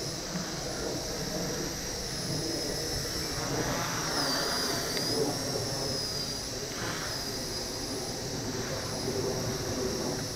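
Blade nano CP X micro RC helicopter in flight, its motor and rotors making a thin high whine that wavers up and down in pitch as the throttle changes, over a steady rushing noise.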